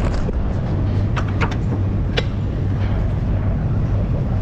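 Steady low mechanical hum, with a few short sharp clicks about one, one and a half and two seconds in.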